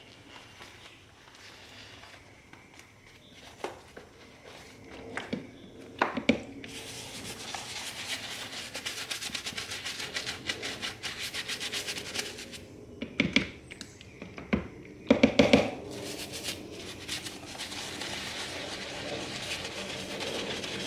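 Leather ball glove being scrubbed and rubbed during cleaning. A run of quick strokes lasts several seconds, then come a few knocks and thumps, then softer rubbing.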